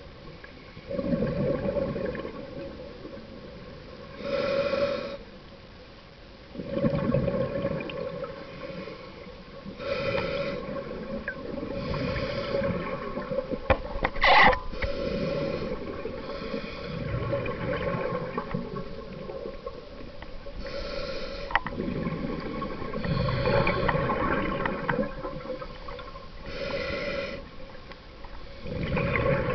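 Scuba diver breathing through a regulator underwater: a hiss on each inhale and a low rush of exhaust bubbles on each exhale, repeating every few seconds. A faint steady hum runs underneath, and there is one sharp knock about fourteen seconds in.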